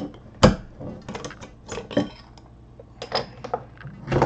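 Metallic clicks and clinks of a handheld cylindrical metal bottle opener being worked on a beer bottle's cap, the sharpest click about half a second in, followed by glass and metal knocks as the bottle is set down on the table.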